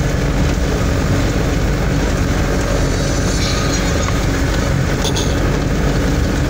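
Vehicle engine running with a steady, loud rumble and body rattle as it drives over a rough dirt track, heard from inside the cab.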